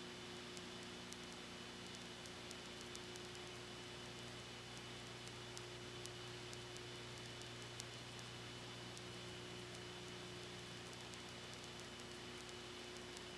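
Steady recording hiss and a low electrical hum, with faint scattered ticks, typical of old videotape noise; no performance sound stands out.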